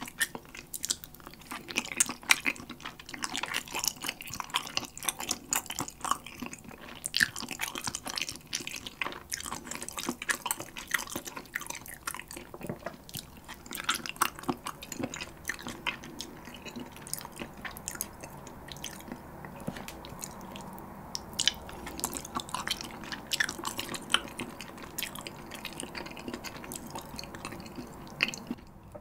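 Close-miked wet chewing of spicy sauced chicken feet: sticky mouth smacks and clicks in quick succession, thinning out for a few seconds in the middle.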